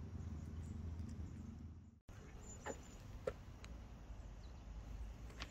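Faint outdoor background noise with a steady low rumble. It cuts out briefly about two seconds in, then returns with a few faint ticks.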